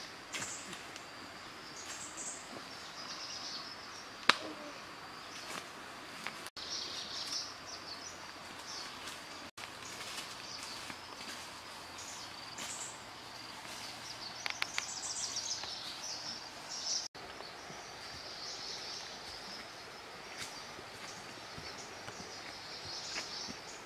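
Outdoor woodland ambience: a steady high chirring with bird-like chirps over it, and scattered footsteps crunching on dry leaf litter, with one sharp snap about four seconds in. The sound drops out briefly three times.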